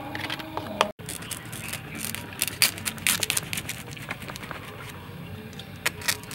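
A spoon tapping and scraping in a stainless steel mixing bowl, cut off about a second in. Then a cleaver scraping and clicking against a horseshoe crab's hard shell on a wooden chopping board: scattered sharp clicks over a steady background hiss.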